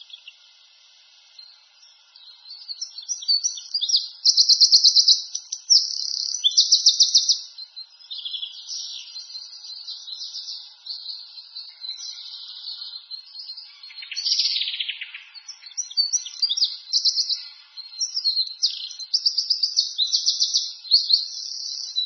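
Songbirds singing a run of fast, high trills and chirps, starting about two seconds in, with one long falling trill about two-thirds of the way through.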